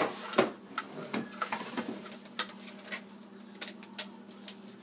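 Live crabs grappling in a sink, their shells and legs clicking and scraping against each other and the sink in a run of irregular sharp clicks, over a steady low hum.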